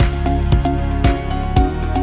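Background music with a steady beat, about two beats a second, under sustained melodic tones.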